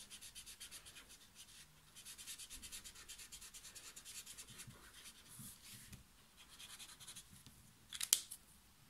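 Soft brush tip of an Ecoline brush pen scratching over textured watercolour paper in quick back-and-forth strokes as a colour swatch is scribbled in. A few sharp clicks about eight seconds in.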